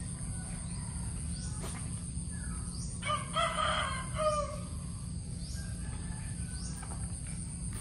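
A rooster crowing once, about three seconds in, over a steady high-pitched insect trill.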